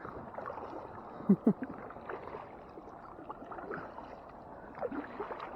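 Water lapping and paddle dips around a kayak, a low even wash, with two short vocal sounds about a second in.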